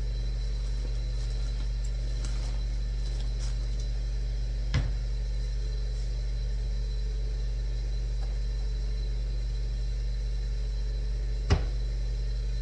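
Steady low electric hum with a faint high whine over it, broken by two short knocks, a light one about five seconds in and a louder one near the end.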